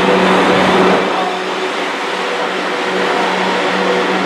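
Class 444 Siemens Desiro electric multiple unit running slowly through the platform, its traction equipment giving a steady hum made of several held tones over rolling noise. It gets a little quieter about a second in.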